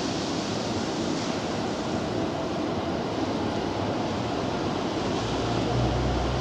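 Steady hiss of rain and wind, with a low rumble coming in about five seconds in.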